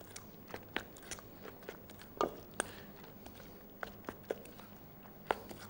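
Grated raw potato batter being stirred in a stainless steel bowl: faint, irregular wet crunching of the potato shreds, with scattered sharp taps of the utensil against the bowl.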